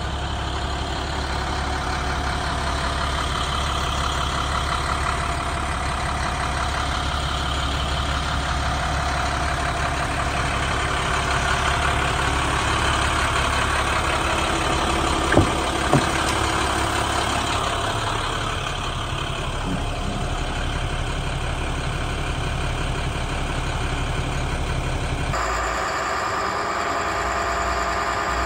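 International 7300's MaxxForce DT turbo diesel idling steadily, with two sharp clicks about halfway through. The engine sound changes abruptly near the end.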